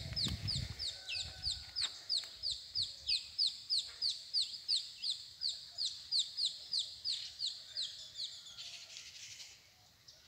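A bird calling a fast, even series of short, high, downward-slurred chirps, about three a second, which stops a little before the end. A low rumble fades out within the first second.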